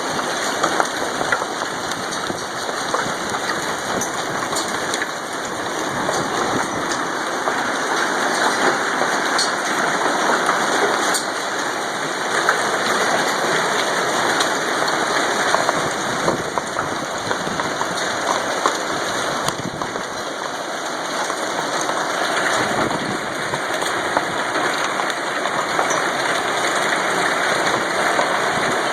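Hailstones pelting down in a heavy hailstorm, a dense, steady clatter of countless small impacts.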